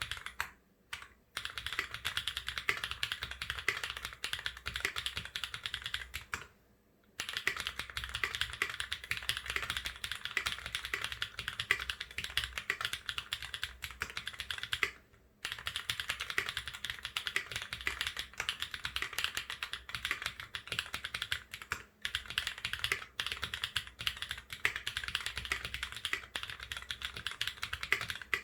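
Fast, continuous typing on a Duck Eagle v3 mechanical keyboard with Holy Chickies switches and springs lubed with Krytox 107, mounted on an FR4 plate and fitted with GMK keycaps. The typing stops briefly twice, about a third of the way in and about halfway through.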